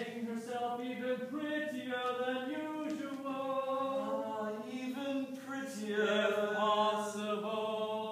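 Live singing from a stage musical: held, sustained notes that step up and down in pitch, with no break in the line.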